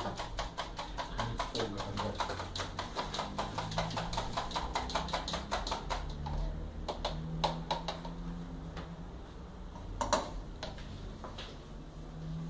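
A fork beating crepioca batter in a plastic cup: quick, even clicking of about six strokes a second that breaks off about six seconds in. A few scattered taps follow, with one louder knock near the end.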